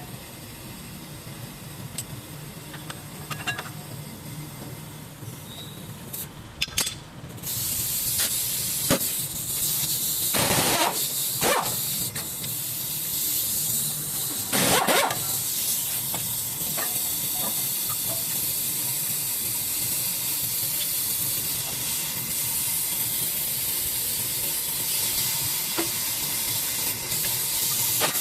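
A steady hiss that starts about seven seconds in, with a few knocks and clanks over it.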